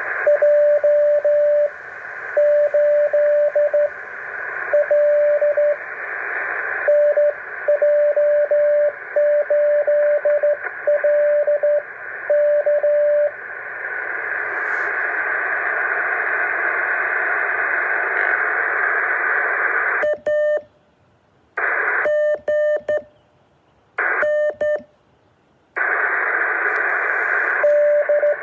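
Morse code (CW) signal heard on a radio receiver: a single steady tone keyed in dots and dashes over a band of receiver hiss. The keying stops about halfway through, leaving only hiss. The hiss then cuts out abruptly three times for a second or so each, and the keyed tone resumes near the end.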